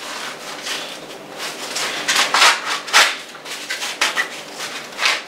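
Fresh green corn husks rustling and tearing as they are pulled back and stripped from an ear of corn, in a series of irregular strokes, the loudest about two and a half and three seconds in.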